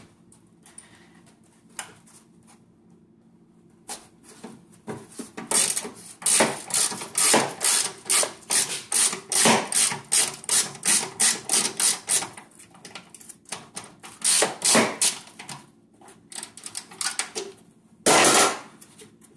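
Ratchet wrench with a 12 mm socket working a battery-tray bolt that is in poor condition. A run of sharp clicks, about two or three a second, lasts for roughly ten seconds, and a louder scraping rasp comes near the end.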